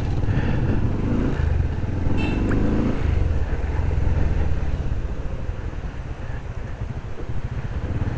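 Motorcycle engine running under way, its note climbing twice in the first three seconds as the bike pulls away and gathers speed.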